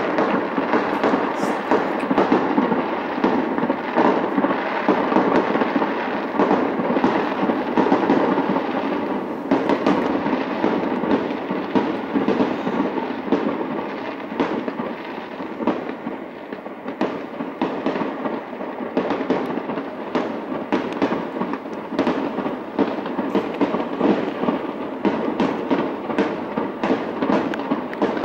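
Fireworks display: a dense, unbroken barrage of crackling and popping bursts, with more distinct sharp bangs standing out in the second half.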